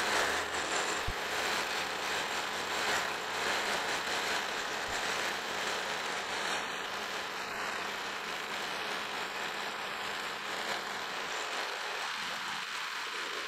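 Milling machine with a roughing end mill taking a full-depth cut through the centre of a metal workpiece, a steady cutting noise with the spindle running.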